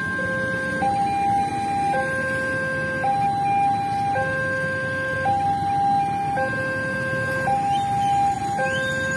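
Railway level-crossing warning alarm sounding its electronic two-tone signal, a lower and a higher tone alternating about once a second, warning that a train is approaching. Low engine rumble of motorbikes and cars waiting at the lowered barrier runs underneath.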